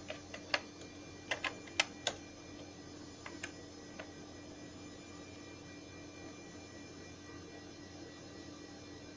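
Computer keyboard keys clicking: about ten keystrokes in the first two seconds and a few more around three to four seconds in. After that only a steady low hum remains.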